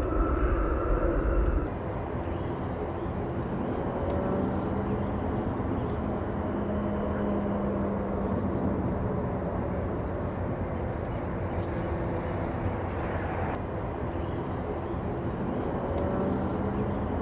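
Outdoor background: a steady low rumble with a faint hum. A heavier low rumble at the start stops suddenly about two seconds in.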